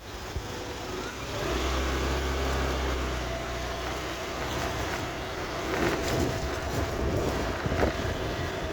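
Road traffic noise, with a motor vehicle's engine passing close from about one and a half to three and a half seconds in.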